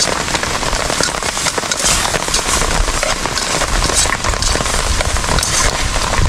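Steady heavy rain pattering on a tarp shelter, a dense hiss of fine drops.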